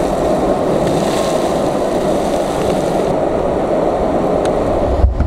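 Skateboard wheels rolling steadily over damp asphalt, a continuous grinding rumble that stops abruptly near the end.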